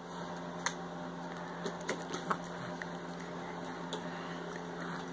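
A steady background hum with a handful of short, sharp clicks scattered through it.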